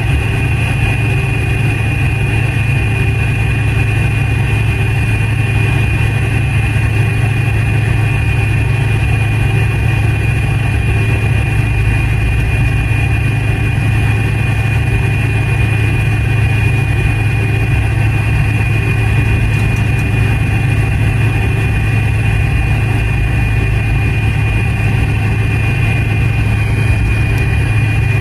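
McDonnell Douglas MD-88's rear-mounted Pratt & Whitney JT8D turbofans running at taxi power, heard from inside the cabin: a steady low drone with an even high-pitched whine over it.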